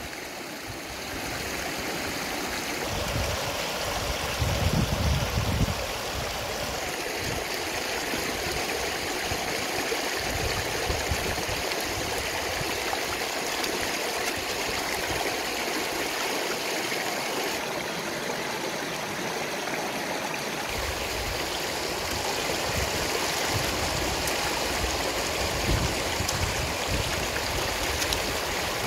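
Shallow stream running over rocks, with water splashing as hands swish lettuce leaves back and forth in it.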